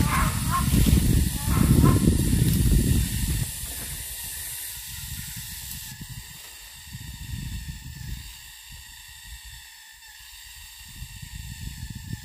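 Rainforest background: a steady high hiss of forest insects under low rumbling noise, the rumbling loudest in the first three seconds, with a few short chirps in the first two seconds.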